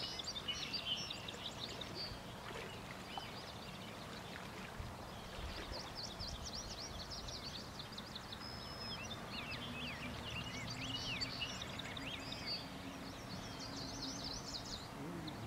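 Several small birds chirping and singing in quick, overlapping phrases, busiest in the middle and later part, over a steady low background rush.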